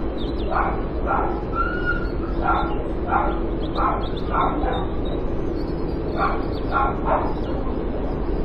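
A dog barking over and over, about two barks a second, in two runs with a pause of over a second between them, over a steady low background hum.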